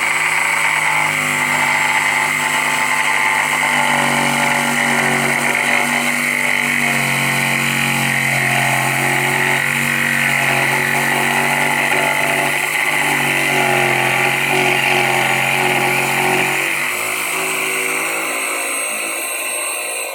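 Electric jigsaw running and cutting, a steady high motor whine under a lower, shifting buzz that wavers as the blade is loaded; the buzz thins out about three seconds before the end.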